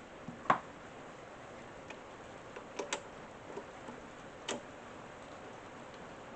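A few sharp clicks and knocks of parts and tools being handled at a workbench: the loudest about half a second in, a close pair near the middle and one more later, over a faint steady hiss.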